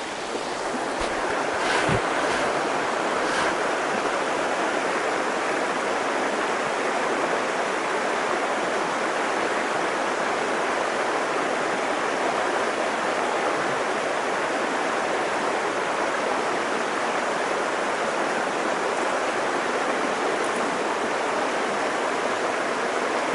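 A small rocky brook flowing over stones in a steady rush of water, with a few faint knocks in the first few seconds.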